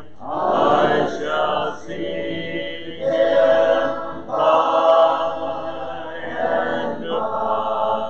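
Church congregation singing a hymn unaccompanied, many voices together in phrases with short breaks between.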